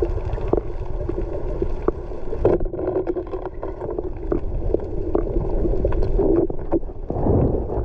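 Underwater sound through a camera's waterproof housing: a muffled, steady rumble of water with many scattered sharp clicks.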